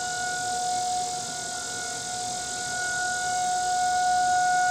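Outdoor tornado warning siren sounding a steady, unwavering tone during a siren test.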